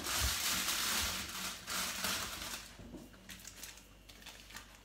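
Crinkling rustle of baking paper being handled as raw turkey slices are laid on it, lasting about three seconds and then giving way to a few faint light taps.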